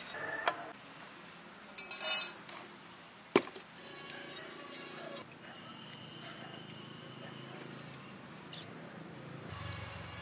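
Small fish being scaled and cleaned against the metal blade of a bonti, a curved cutting blade fixed upright on a wooden base: soft scraping with a few sharp clicks, the loudest about a third of the way in. A steady high insect drone runs underneath.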